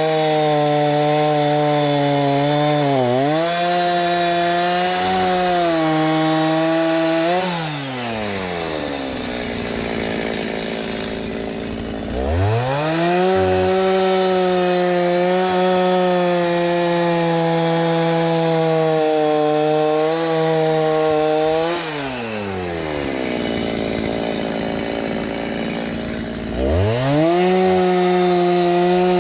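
Chainsaw running at high revs while bucking dried oak firewood, easing down to idle twice and revving back up each time, in about eight-second spells at full throttle.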